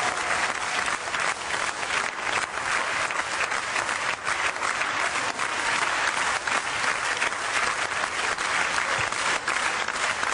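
Audience applauding, a steady dense clapping that holds at the same level throughout.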